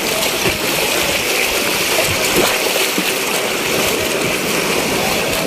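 Steady rush of shallow surf washing around people wading in the shallows, with small splashes from their legs moving through the water.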